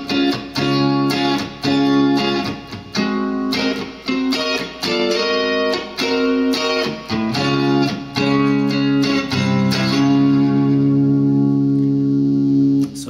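Paisley Fender Telecaster electric guitar playing a chord part. The chords are barred at the fourth fret, with fingers added at the sixth and seventh frets, and are struck in short rhythmic stabs. About ten seconds in, one chord is held and rings until just before the end.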